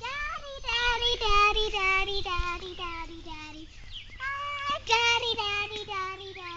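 A young girl singing a wordless tune in a high voice, in two phrases of held notes that step down in pitch, with a short break about four seconds in.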